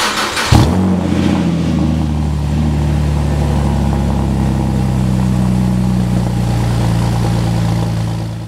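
A car engine starting with a short, loud burst about half a second in, then idling steadily before fading out near the end.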